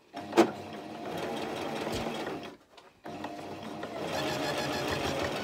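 Toyota domestic sewing machine stitching steadily in two runs, stopping briefly about two and a half seconds in before sewing on. There is a sharp click just after it starts.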